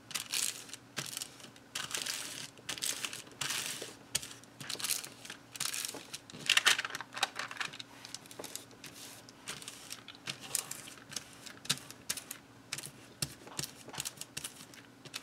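Paper rustling and crinkling as sheets of tracing paper and white card are handled, smoothed flat and shifted by hand: a run of short swishes and light taps, the loudest a little before halfway.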